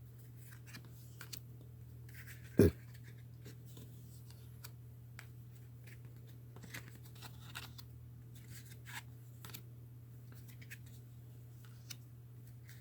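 Faint rustling and light clicking of tarot cards being handled and sorted, with one sharper tap a little over two and a half seconds in, over a steady low hum.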